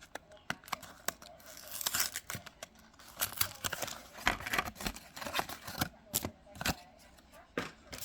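A trading card booster pack's foil wrapper being torn open and crinkled, with sharp clicks and rustles as the cards are handled.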